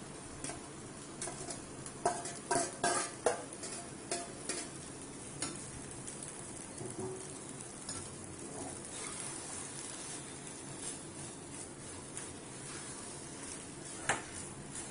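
Steel bowl and spoon clinking and scraping against a kadai as cooked rice is tipped in and stirred into fried raw-mango paste, a cluster of clatter about two to four seconds in, lighter scrapes after and one sharp clink near the end, over a steady low hiss.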